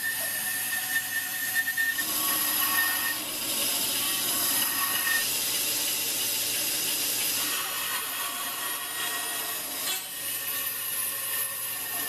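Bandsaw cutting a small block of wood, its blade running steadily through the cut. A thin high tone rides over it for the first few seconds, and the sound shifts in character about two, seven and ten seconds in as the cut changes.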